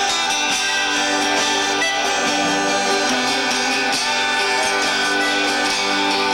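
Folk-rock music: a harmonica holding long notes over guitar.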